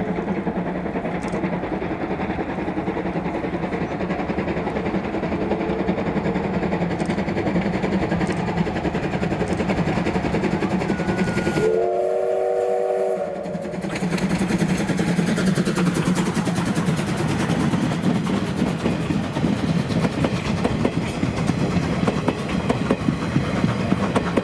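C12 steam tank locomotive hauling its train with a steady, heavy working sound. Its steam whistle sounds once, for about a second and a half, about halfway through. In the second half the coaches roll close by with fast, regular clicking of the wheels.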